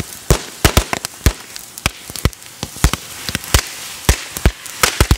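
Leftover fireworks, firecrackers among them, going off in a bonfire: about a dozen sharp pops at irregular intervals over a steady hiss of burning.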